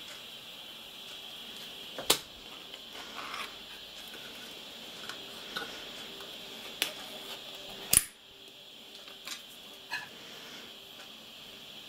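Several sharp clicks and taps from a metal tin with a ring-pull peel-off lid being opened and handled, the loudest about eight seconds in. A faint steady hiss runs underneath.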